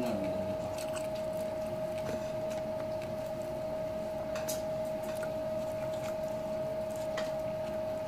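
Soft squishy eating sounds of a person eating rice and chicken by hand from a plate, chewing and picking up food, with a few faint clicks. A steady hum in one tone runs underneath.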